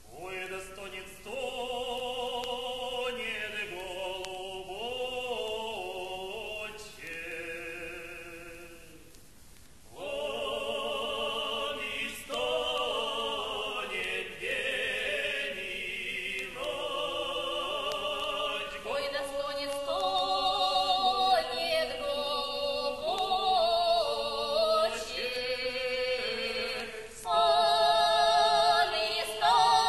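Russian folk choir singing a song in long held notes, breaking off about nine seconds in and resuming, growing louder toward the end.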